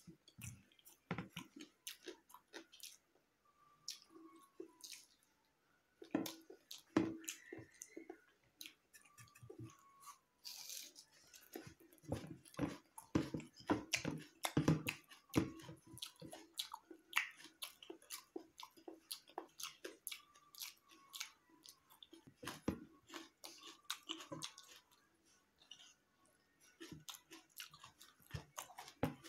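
Close-miked chewing and wet mouth sounds of a man eating boiled egg and rice: a steady run of irregular smacks and clicks, busiest about halfway through.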